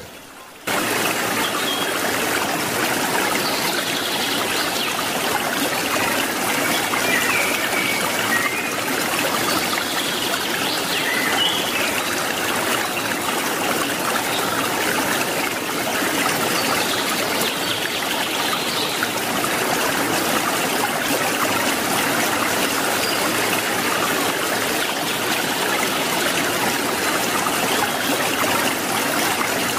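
Water splashing and trickling steadily into a koi pond, starting just under a second in.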